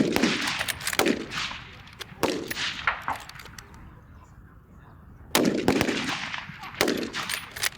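Rifle shots on a firing range: a loud report about every second or so, five or six in all, each with a short echoing tail, and fainter cracks between them.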